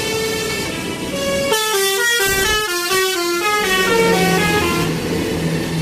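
Basuri telolet bus horn, a multi-tone musical air horn, playing a melody of short stepped notes that come quickest in the middle, over steady background noise.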